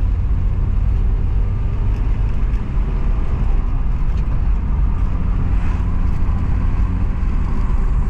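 Engine and tyre noise of a 2001 Honda Civic with a VTEC engine, heard from inside the cabin while driving: a steady low rumble.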